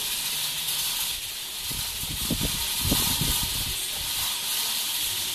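Cicada buzzing in a steady, unbroken high hiss, with some low rumbling about two to three seconds in.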